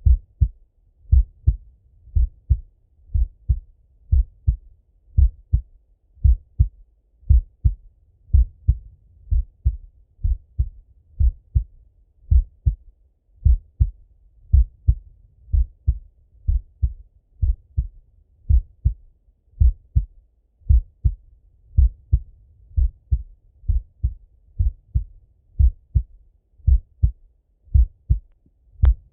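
Slow, steady human heartbeat heard through a stethoscope: paired lub-dub thumps about once a second, deep and muffled. A sharper click comes near the end.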